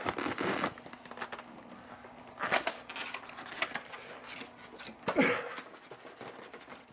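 Cardboard box and plastic packaging rustling and scraping in irregular bursts as a model locomotive's packaging is worked and pulled out of its box, with a few louder scrapes near the start, about two and a half seconds in, and about five seconds in.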